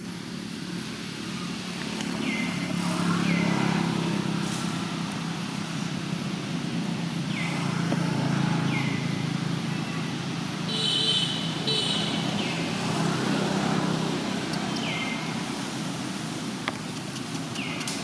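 Road traffic: vehicles passing one after another, the rumble swelling and fading every few seconds, with short high chirps falling in pitch now and then.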